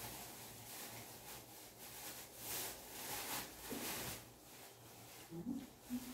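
Faint rustling and a few soft knocks from things being shifted and lifted off the top of a wardrobe, with the knocks in the second half.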